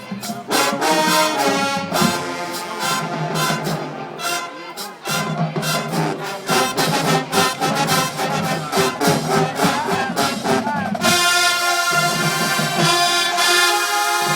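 HBCU marching band playing, with trombones, trumpets and drums. The full brass section comes in louder and brighter about eleven seconds in.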